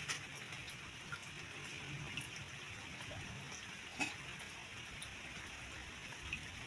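Rain falling on shallow water, a steady patter with scattered single drops and one louder plop about four seconds in.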